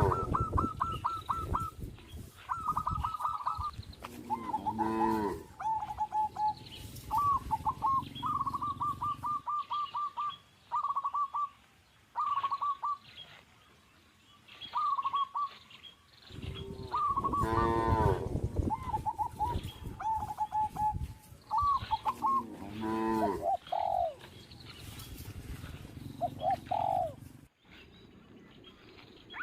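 Cattle mooing about four times, one call longer than the rest, while small birds chirp and trill repeatedly throughout.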